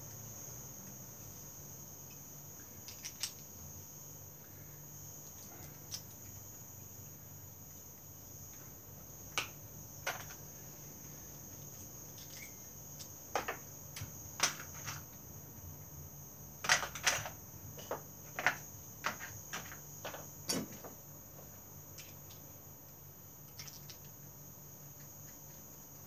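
Hand tools working wood at a workbench: scattered short scrapes and taps, a few at first and then a cluster of quick ones in the middle, over a steady faint high-pitched whine.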